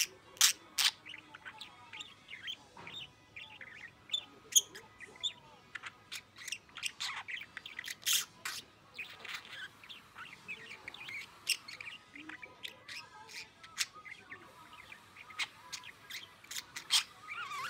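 A budgerigar chattering and warbling in a fast, unbroken run of sharp chirps, clicks and quick warbles, a few chirps standing out louder. The bird is excited and in a good mood, and its babble is close to forming words without quite becoming speech.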